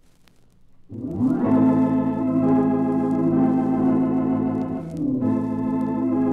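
Organ music cue of held chords, coming in about a second in after a near-silent start, with a brief break near five seconds before a new chord.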